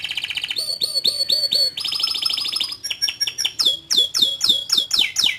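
Domestic canary singing a long song in tours: a run of repeated chirps, a very fast rolling trill, then a series of quick downward-sweeping whistles, about three a second.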